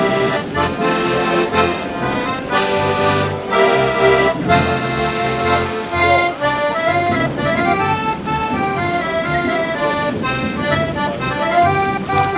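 Accordion playing a lively tune: a melody over sustained chords, with a steady pulsing bass.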